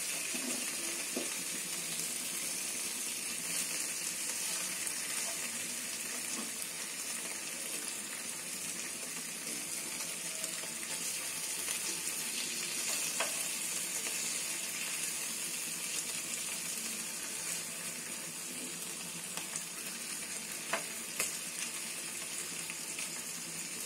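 Tilapia fish fingers sizzling steadily in oil on a flat griddle, with a metal spoon scraping the pan and giving a few sharp taps as the pieces are turned.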